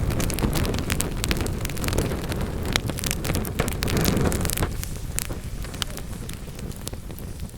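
Wood fire burning in a fireplace, crackling with many sharp pops over a low rumble of flames. The rumble eases off a little over halfway through, leaving quieter, sparser crackles.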